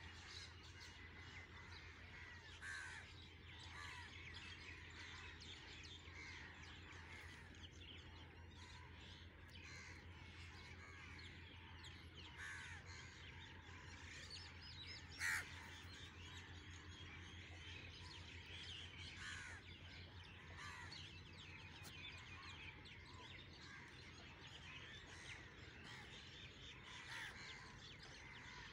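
Faint chorus of many birds calling, short overlapping calls throughout, with one clearly louder call about fifteen seconds in, over a low steady hum.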